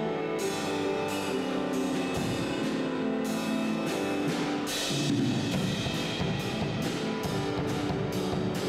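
An instrumental ensemble playing: held chords, then a steady beat of drum strokes comes in about halfway and carries on under the harmony.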